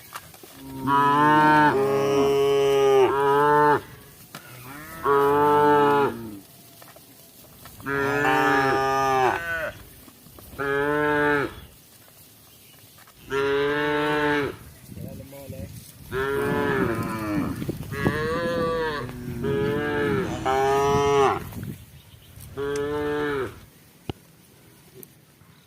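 Cattle mooing repeatedly: about nine long, loud calls spread over twenty seconds, each lasting one to two seconds, with short quiet gaps between them.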